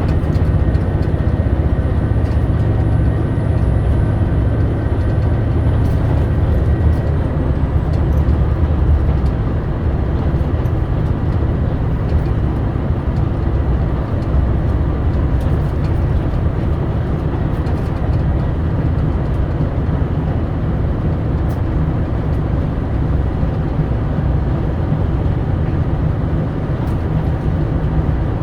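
JR Shikoku 2000 series diesel railcar heard from inside the car, running at high speed with a steady din of engine and wheels on rail. A faint high whine falls away about seven seconds in.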